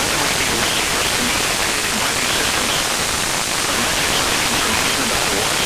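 Steady hiss of FM radio static from a weather radio on weak NOAA Weather Radio reception, with the station's automated voice reading the weather roundup faintly through the noise.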